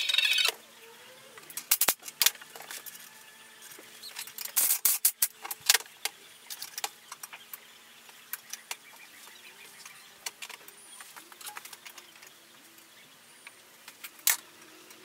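Intermittent metallic clicks and clinks as steel scooter frame parts and bolts are handled and fitted together on a steel workbench, with a cluster of knocks about two seconds in, a busier run around five seconds, and a single sharper knock near the end, over a faint steady hum.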